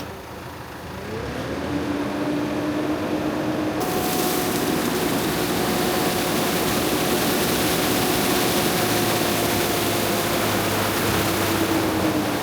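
Diesel engine of a grape harvester revving up. About four seconds in, a loud, steady rushing noise cuts in on top of it, and the engine runs on steadily under load.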